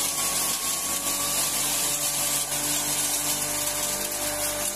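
Electric fodder crusher (drobilka) running steadily as alfalfa hay is fed into its hopper and shredded. It makes a constant motor whine over an even hiss.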